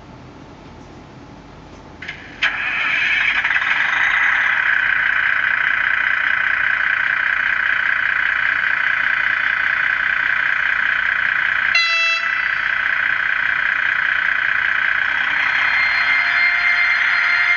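Sound decoder of an ESU model DB class 245 diesel locomotive playing through its small onboard speaker: after a couple of clicks about two seconds in, the diesel engine sound starts up and runs steadily. A short horn toot sounds about twelve seconds in, and a steady whine joins the engine sound near the end.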